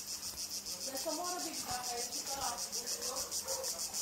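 Cicadas singing in a steady high-pitched pulsing chorus, about six pulses a second.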